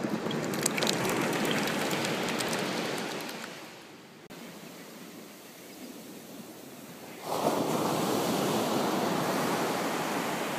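Ocean surf washing on the shore. One wave rushes in at the start and fades after about three and a half seconds, then another surges in about seven seconds in. A few light clicks come in the first second or two.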